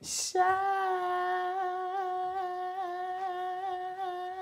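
A man singing unaccompanied: after a short breathy hiss, he holds one long high note with a light vibrato.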